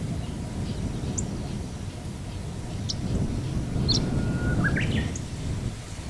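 Chestnut-eared bunting calling: short, sharp high notes scattered through, and a brief phrase about four and a half seconds in that holds one note and then rises. Under it runs a steady low rumble.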